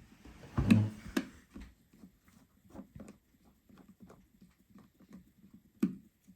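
Small screws being fitted and tightened with a precision screwdriver inside an iPhone 12: a knock a little under a second in, then a long run of small, irregular clicks and taps, with a sharper tap near the end.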